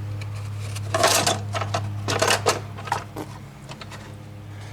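Clicking and clattering of hand tools and small metal parts being handled, in a few short bursts, over a steady low hum.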